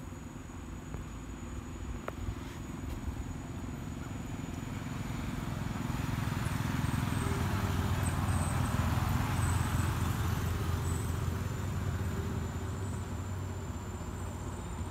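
A motor vehicle passing by, its low engine rumble swelling to a peak about halfway through and then fading.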